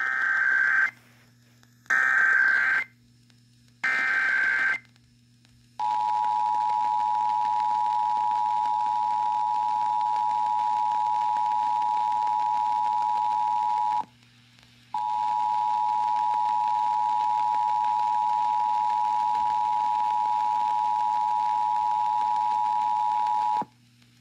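Emergency Alert System broadcast alert: three short bursts of digital SAME header data, each about a second long and a second apart, then the EAS two-tone attention signal (853 and 960 Hz sounding together), a steady harsh dual tone that breaks off once for about a second partway through and again near the end. A faint low hum runs underneath.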